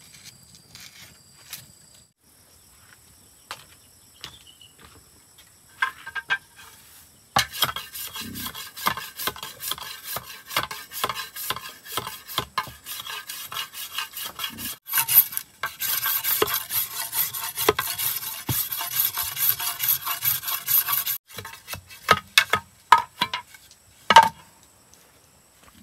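Quick rasping, scraping strokes: a few scattered clicks at first, then a dense run of scraping for about a dozen seconds that stops abruptly, followed by a few clicks and one loud knock near the end.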